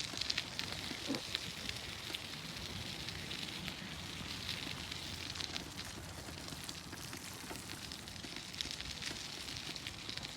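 Rain pattering steadily, with scattered sharp ticks of individual drops.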